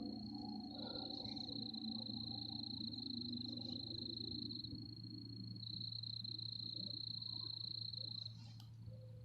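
A steady, high-pitched animal trill that holds one pitch throughout, stepping slightly lower for a few seconds twice, over a faint steady low hum.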